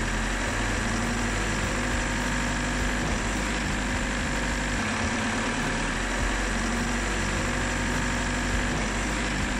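Bobcat Toolcat utility work machine's diesel engine running steadily while the hydraulic controls are operated to cycle fresh hydraulic fluid through the system and vent trapped air.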